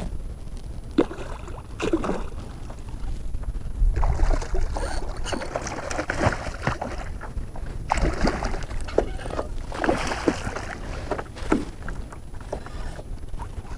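Irregular splashing and sloshing of water as a hooked redfish thrashes at the surface beside a kayak, over a low wind rumble on the microphone.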